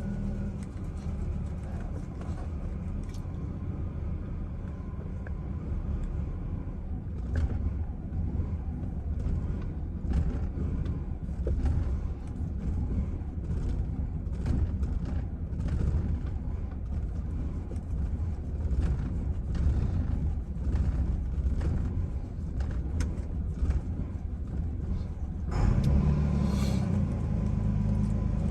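Chevrolet Silverado engine running at a very rough, uneven idle. It grows a little louder and brighter about 26 seconds in.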